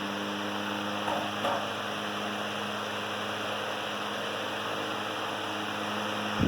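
Antique 1918 Emerson 19646 12-inch electric fan running steadily on its low speed: a steady motor hum under the even rush of air off the blades.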